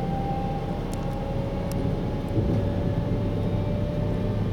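Electric train running: a steady low rumble with two faint whining tones that drift slowly in pitch.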